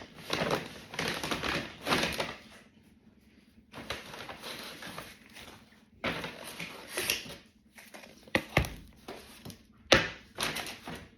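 A takeaway bag rustling and crinkling as it is handled and opened, in uneven bursts, with a few sharp knocks in the last few seconds, the loudest about ten seconds in.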